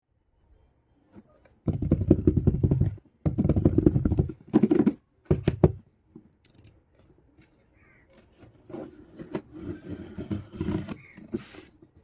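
Toy packaging and small plastic kitchen pieces being handled close to the microphone: four loud bursts of rustling and scraping in the first half, then softer rustling and light clicks near the end.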